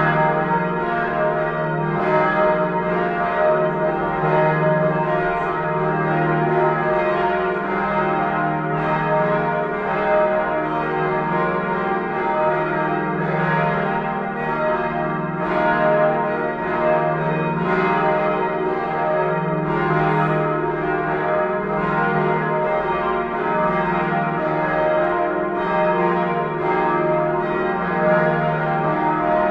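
Church bells of the Neumünster in Würzburg ringing together in a continuous peal. Strokes overlap about every second over a dense, sustained hum of bell tones.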